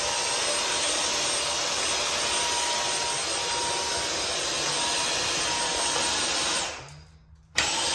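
Dyson V10 Animal cordless stick vacuum running steadily on its low power setting with the original Dyson filter fitted, a crevice tool sucking air just above a sheet of paper. Near the end the noise dies away for under a second, then comes back abruptly.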